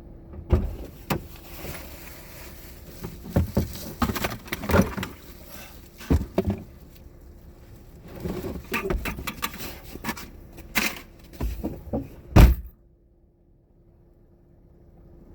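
Irregular knocks, clicks and rustling, like gear being handled, that stop abruptly near the end.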